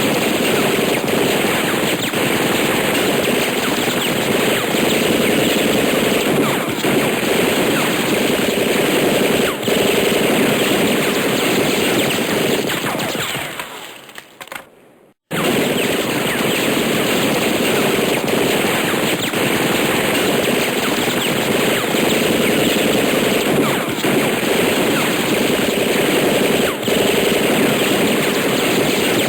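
Machine gun sound effect: long sustained bursts of automatic fire, a dense continuous rattle of rapid shots. About halfway through, the firing fades away, stops for about a second, then starts again at full level.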